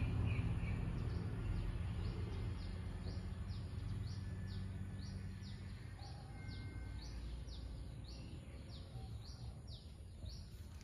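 A bird calling over and over, a short falling chirp about twice a second, over a low outdoor rumble that slowly fades.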